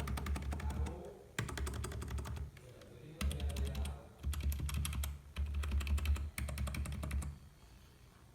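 Computer keyboard typed on quickly: rapid runs of key clicks in about six bursts, with short pauses between them.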